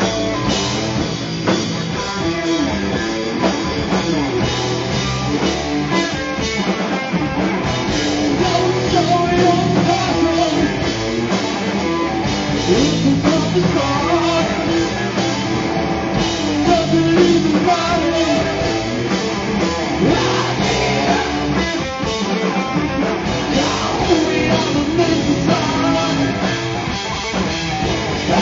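Live rock band playing loud: electric guitars and a drum kit, with a singer's voice over them.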